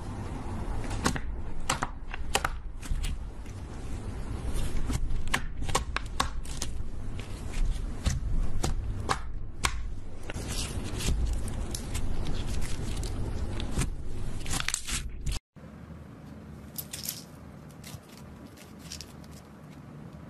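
Hands squishing and poking a thick metallic slime, giving a rapid, irregular series of sticky clicks and pops. After a sudden cut about fifteen seconds in, a hand presses into a bowl of slime mixed with foam beads, much quieter, with faint crackles.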